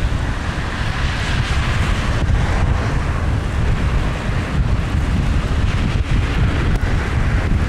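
Strong wind buffeting the microphone in a steady low rumble, with the wash of choppy surf beneath it.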